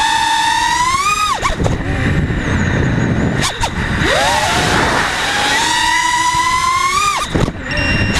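Nighthawk racing quadcopter's electric motors whining, the pitch climbing with the throttle and then falling away abruptly about a second in. A rough rushing noise follows, then the whine climbs again and drops sharply near the end.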